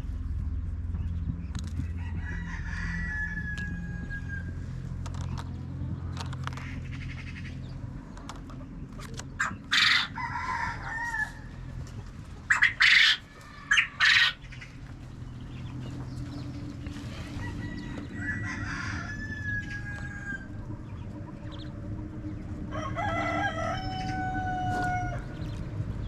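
Roosters crowing, three long crows spread through the stretch, with chickens clucking. A burst of loud, close squawking calls comes in the middle, over a steady low hum.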